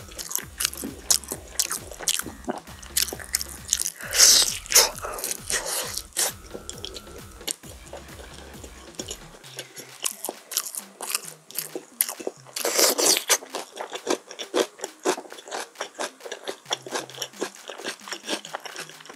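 Close-up chewing and crunching of crispy chili-pepper oven-roasted chicken, a steady run of quick crisp crunches with two louder bursts of biting, about four seconds in and again around thirteen seconds.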